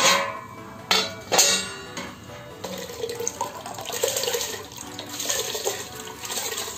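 Metal cookware clanks three times, then wet washed rice is tipped and pushed by hand from a steel bowl into a metal pot of water, splashing and trickling in. Background music runs underneath.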